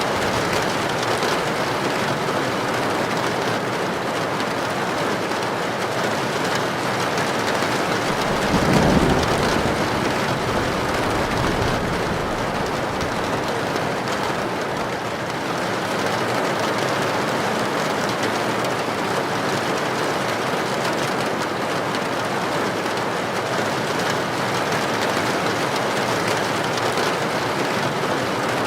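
Heavy rain falling steadily on a tin roof, with a low rumble of thunder that swells up about a third of the way in and fades over several seconds.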